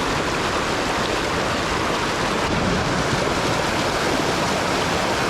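Rushing water of a mountain stream at a waterfall, a loud, steady, even rush with no break.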